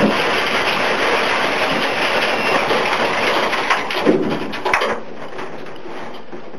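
Cabin noise of a Škoda 130 Maxi race car slowing after a coolant circuit failure: a rushing rattle that fades over the first five seconds, with a few knocks about four and five seconds in, leaving a steady hiss.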